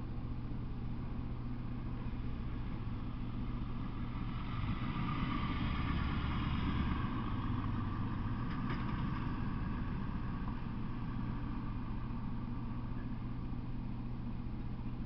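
Steady low hum of an idling engine. Partway through, a passing vehicle swells up and fades over about four seconds, with a brief sharp click near the end of it.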